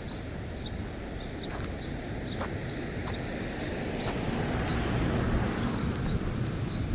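Street traffic noise: a vehicle passing, its rumble growing louder over the second half. A small bird gives short repeated chirps.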